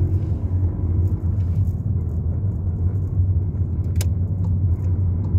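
Car engine and road noise heard from inside the cabin, a steady low rumble as the car accelerates, with one sharp click about four seconds in.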